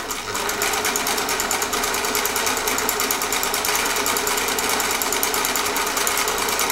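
Singer 348 sewing machine running at a steady speed, a rapid, even clatter of needle strokes. It is sewing a cam-disc decorative stitch at a very short stitch length.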